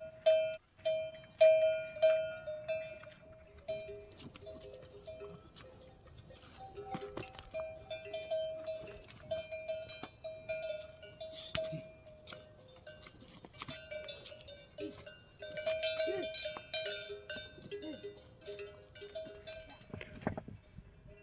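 Livestock neck bells ringing in a steady clanking rhythm, about two strokes a second, as the animals move. Two bells of different pitch can be heard, louder in the first few seconds, then fainter.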